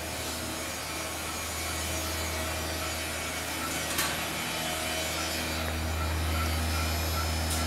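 Wet spent hops, drained from a beer tank, pouring from a pump's outlet pipe and splattering onto the floor, over the steady hum of the electric pump; the hum grows louder about two-thirds of the way through.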